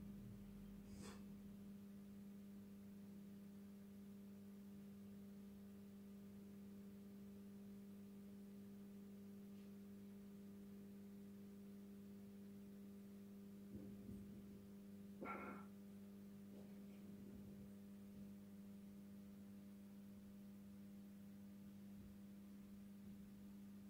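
Faint, steady electrical hum from the Industria 2600 street light's ballast as its lamp warms up. A couple of faint brief knocks come around the middle.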